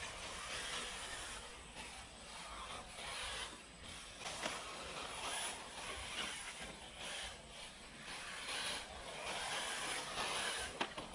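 1/10-scale RC rally cars running on a dirt track: a rasping whir of drivetrains and tyres scrabbling on dirt, swelling and fading as the cars come and go, with one sharp click near the end.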